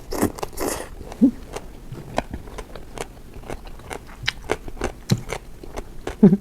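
A person chewing crunchy food close to the microphone: many small sharp crunching clicks, with a brief hummed 'mm' about a second in and again near the end.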